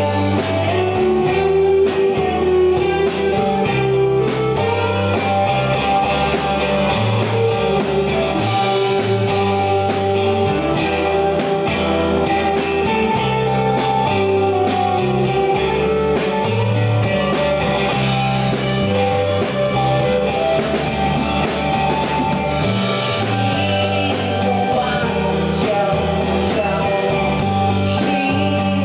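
Live rock band playing a song: two electric guitars over electric bass and a drum kit, in a steady beat.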